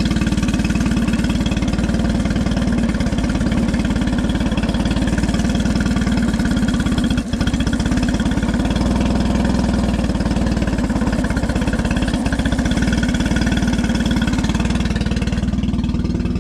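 Outboard engine idling steadily on a test run after its service, with a brief dip in level about seven seconds in.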